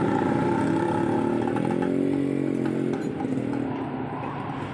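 A motorcycle engine running close by. Its pitch rises and falls around two seconds in, then the sound fades.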